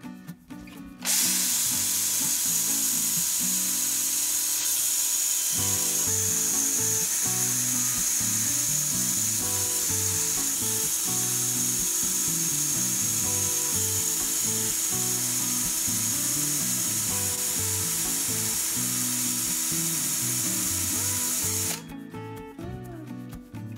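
Makita cordless drill running steadily, spinning a 3D-printed cylindrical roller bearing, with a high whine over its noise. It starts about a second in and stops near the end, with background music underneath.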